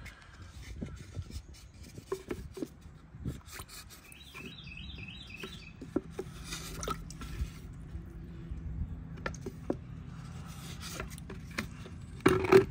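Flat wooden stick stirring a liquid fertilizer mix in a plastic measuring pitcher, rubbing and knocking against the pitcher's sides, with a louder bump near the end.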